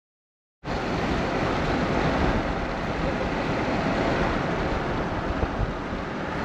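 Steady rush of wind and road noise from a car driving along, starting abruptly about half a second in.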